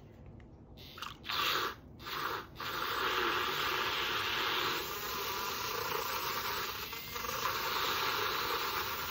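Handheld battery milk frother (Bean Envy) whisking hot milk in a cup. It comes on in two short bursts, then runs steadily from about two and a half seconds in with an even whirring hiss as the spinning whisk froths the milk.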